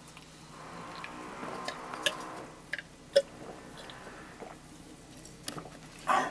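A man drinking from a glass: soft gulping and swallowing, heard as a few short clicks, with a louder sound near the end.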